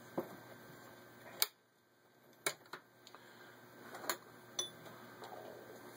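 A few separate clicks and light knocks from handling the Singer 403A sewing machine between stitch runs, as fabric and cams are changed; the loudest click comes about a second and a half in, followed by a moment of dead silence.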